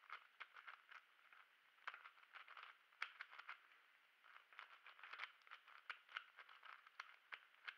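ShengShou Kilominx (2x2 Megaminx) being scrambled by hand: a quick, irregular run of faint plastic clicks as its faces are turned, with a brief lull about three and a half seconds in. The puzzle is still heavily lubricated from the factory.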